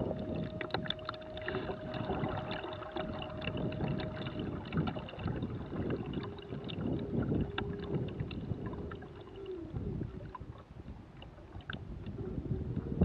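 Hobie trimaran under way: water washing and gurgling against the hulls, with wind buffeting the microphone and scattered light clicks. A faint steady hum runs through the first few seconds, and a lower one slides down and stops near the ten-second mark.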